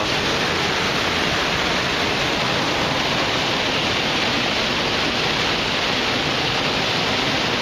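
Mountain stream rushing steadily: an even, unbroken hiss of running water.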